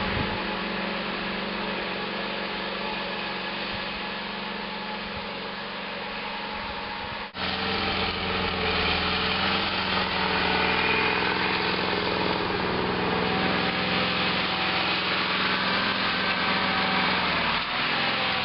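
Sears 18/6 garden tractor engine running steadily under load while plowing snow. About seven seconds in the sound drops out for an instant and comes back louder and fuller.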